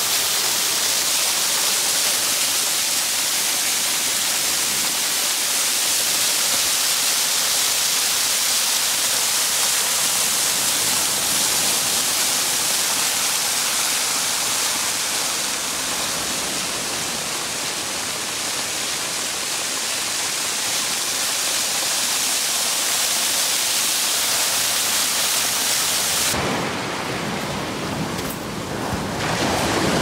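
Waterfall pouring off a cliff onto the beach: a steady, loud rushing hiss of falling water. The hiss turns duller near the end.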